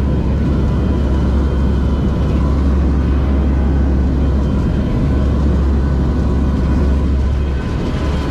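Aircraft engines running in flight, heard inside the cabin of a NOAA hurricane hunter plane: a loud, steady low drone with a faint steady whine over it.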